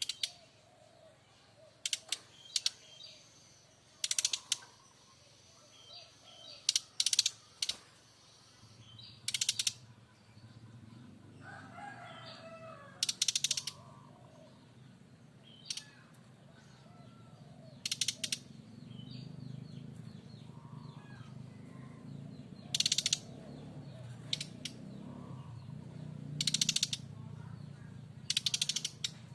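Brown-chested jungle flycatcher making loud, harsh rattling 'kretekan' calls: short crackling bursts, each under half a second, often in quick pairs or triples, repeated every few seconds. A low steady hum rises underneath from about a third of the way in.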